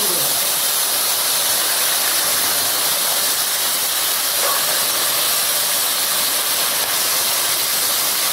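Jaggery syrup sizzling in hot ghee around pan-fried ripe plantain slices: a steady hiss.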